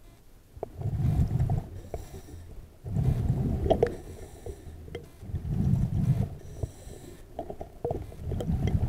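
Scuba diver breathing through a regulator underwater: four bursts of exhaled bubbles about every two and a half seconds, with faint hissing inhalations between them.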